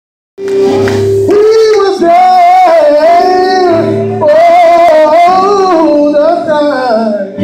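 Live gospel singing: one voice holding long, wavering notes over sustained keyboard chords, starting about half a second in.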